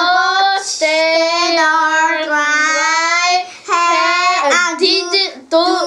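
A young child's voice chanting a practice sentence in long, drawn-out sing-song syllables, then a few shorter syllables after a brief pause about three and a half seconds in.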